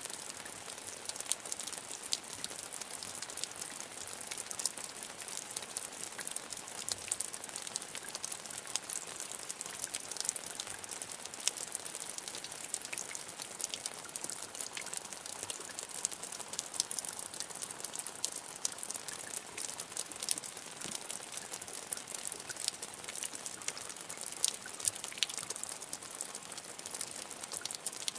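Medium rain falling steadily, with a dense patter of individual drops ticking on a hard surface.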